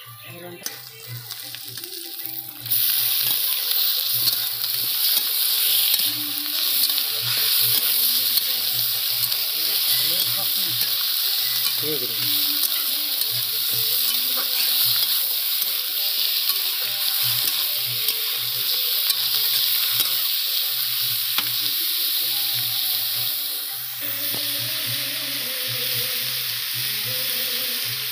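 Raw chicken pieces frying and sizzling in hot oil in a wok with fried onions, stirred with a metal spatula. The sizzle jumps sharply to a loud, steady hiss about three seconds in and eases a little near the end.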